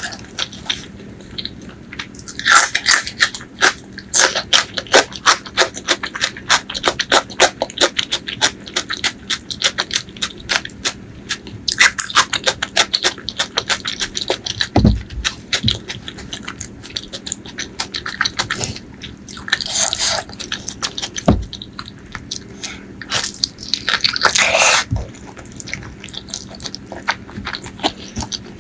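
Close-miked eating of braised pork leg curry with rice: wet chewing and lip smacking, a fast, uneven string of sticky mouth clicks with a few longer wet stretches. Two low thumps come in the middle.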